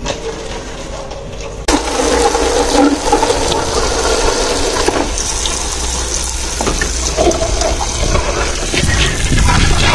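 A stream of tap water pours and splashes into a plastic tub holding mangoes as the fruit is washed. The sound jumps louder about two seconds in and then runs steadily.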